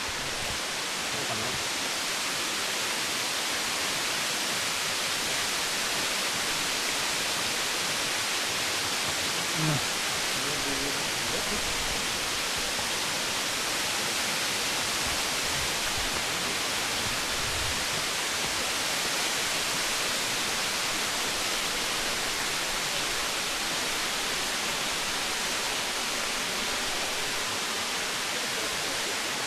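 Waterfall rushing: a steady, even hiss of falling water that does not change, with one brief soft bump about ten seconds in.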